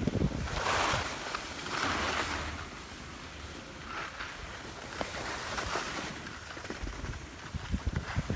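Wind buffeting a phone's microphone while gliding down a ski run. Swelling hisses of sliding over packed snow come through, strongest in the first two seconds.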